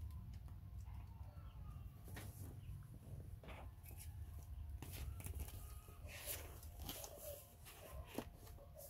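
Faint steady low rumble with scattered soft clicks and rustles.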